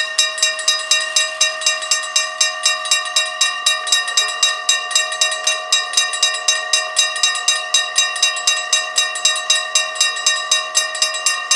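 Mechanical bells of a Dutch AHOB level crossing ringing with rapid, even strikes, about four a second, each strike ringing on into the next. They are the crossing's warning that a train is approaching.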